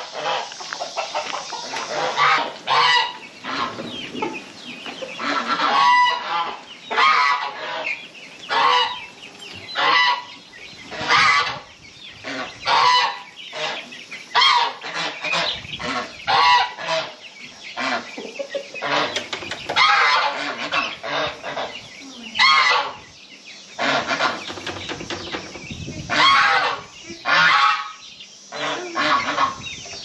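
A flock of domestic geese honking over and over, many loud calls overlapping at irregular intervals.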